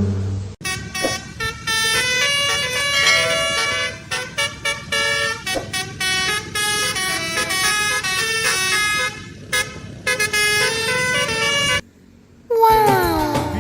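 Indonesian 'telolet' bus horn, a multi-tone air horn, honking out a quick tune of short notes that keep changing pitch. It stops about twelve seconds in, and after a short pause a falling tone starts near the end.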